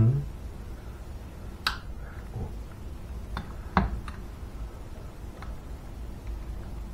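A few light, sharp metallic clicks and taps from hand tools working at the piston of a two-stroke moped engine while the piston is being freed from its pin, the loudest click coming a little under four seconds in.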